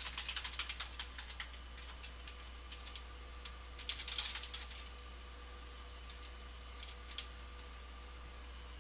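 Computer keyboard keys being typed: a quick run of keystrokes at the start, another short burst about four seconds in, then a few single key clicks.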